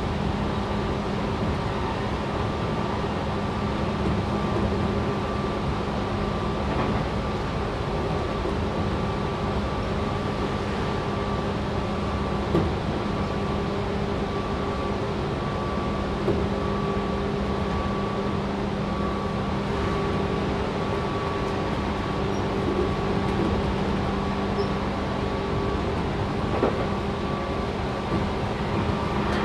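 Cabin running sound of a Tobu 6050 series electric motor car at steady speed. Its TM-63B traction motors and gearing give a steady-pitched whine over the rumble of wheels on rail, with a few short thumps.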